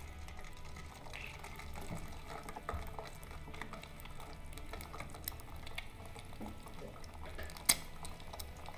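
Egg frying in hot oil in a small nonstick frying pan on an electric hotplate: steady sizzling with many small crackles and pops, and one sharp click near the end.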